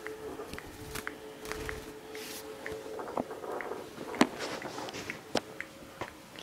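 Pet budgies making small sharp clicks and taps, scattered irregularly with a louder tap about four seconds in, over a faint steady hum that fades out in the second half.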